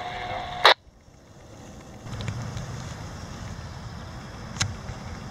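A steady hum ends in one loud click about a second in. From about two seconds in comes the low, steady rumble of a CSX freight train's GE diesel locomotives approaching in the distance, with one light click near the end.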